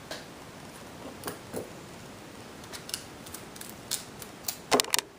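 Scissors snipping paper in short, scattered cuts, the loudest few close together near the end.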